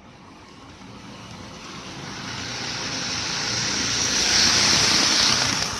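N gauge model of a 205 series EMU running on the layout's track, its motor and wheels making a high, steady hiss that grows louder as the train comes close and falls away sharply near the end.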